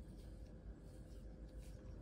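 Faint, soft scraping of a kitchen knife paring the skin off a piece of fruit: a few short strokes over a steady low hum.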